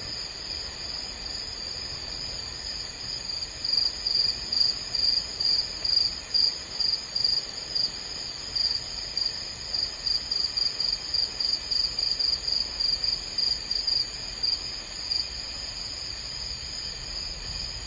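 Night-time insect chorus: a steady high trill, joined from about three and a half seconds in by a louder chirp repeated about three times a second, which fades out a few seconds before the end.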